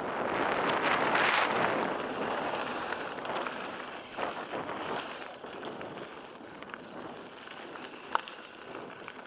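Mountain bike descending a dirt and gravel forest trail: a rushing noise of tyres on the ground and air past the camera, loudest in the first couple of seconds and then easing off. Scattered rattles and clicks run through it, with one sharp tick about eight seconds in.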